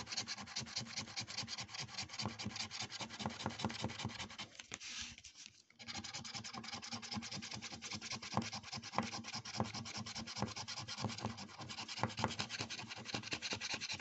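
Scratchcard's latex coating being scratched off in quick, repeated strokes, with a short pause about five seconds in.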